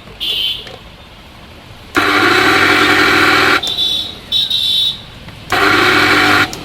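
Mixer grinder motor switched on in short bursts, about four times, each a loud whining run that cuts off. It is the excessive noise of a grinder that still sounds a bit strange, which the repairer suspects comes from a loose motor whose armature touches the body.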